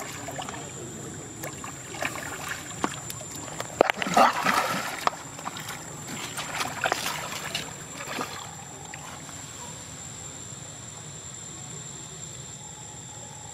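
Water splashing and sloshing as monkeys swim and scuffle in a pool, in irregular bursts that are loudest about four seconds in, then settle to gentle lapping.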